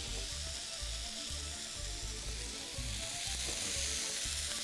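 Cut vegetables sizzling steadily as they sear in a hot frying pan.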